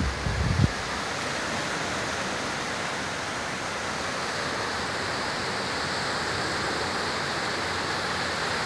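Mediterranean surf: small waves breaking and washing up over the sand in a steady rush. Wind rumbles on the microphone for the first fraction of a second.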